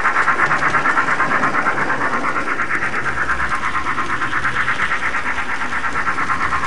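Built-in sound unit of an HO-scale DC Thomas the Tank Engine model locomotive playing a steam-engine chuffing effect: a steady, rapid run of chuffs, about five a second.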